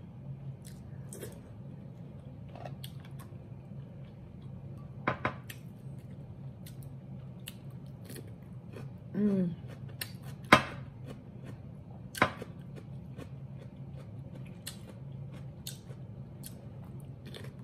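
Close-up crunching and chewing of a raw cucumber spear, heard as scattered sharp crunches. The loudest two come a little past halfway. A steady low hum runs beneath them.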